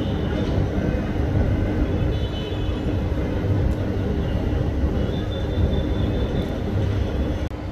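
City road traffic: a steady rumble of passing vehicles with a constant hum. High-pitched tonal sounds rise above it twice, for a second or so each. The sound drops out abruptly for an instant near the end.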